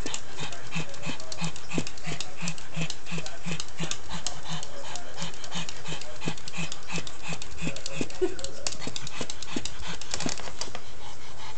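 Pug panting rapidly in short, even breaths, about three a second.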